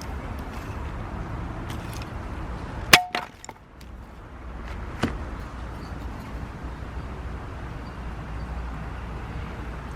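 A single sharp knock with a brief ring about three seconds in, then a lighter click about two seconds later, over a steady low rumble.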